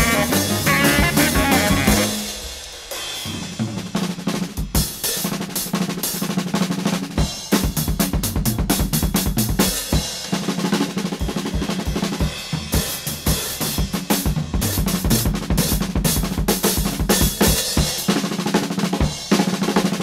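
Jazz drum kit solo: rapid snare and bass drum strokes with rimshots. The saxophone line breaks off about two seconds in and the drums carry on alone.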